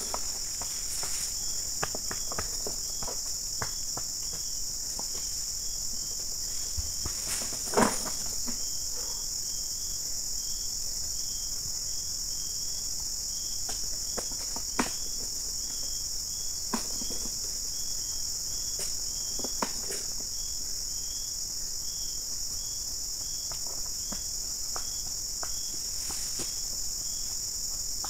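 Steady high-pitched drone of tropical insects, with a short chirp repeating about twice a second. Scattered faint clicks and one sharper knock about eight seconds in.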